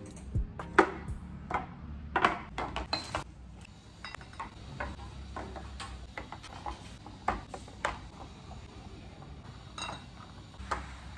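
Glass and plastic condiment bottles being set down into clear plastic organiser bins: irregular clinks and knocks, a cluster about two to three seconds in and a few more near the end.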